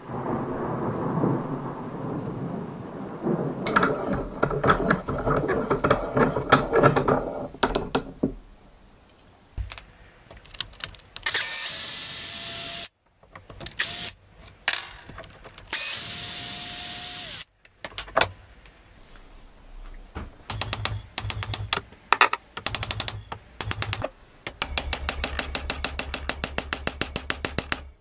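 A drill driving a screw into the old wooden handle stub in a rusty hammer head's eye, running steadily in two bursts of about two seconds each, after a loud noisy opening stretch. Near the end comes a fast, even run of clicks.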